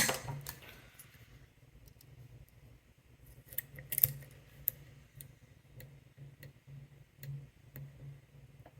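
Lock pick and tension wrench working the pins inside a padlock: a sharp click at the start, a small cluster of metallic clicks about four seconds in, and scattered light ticks between.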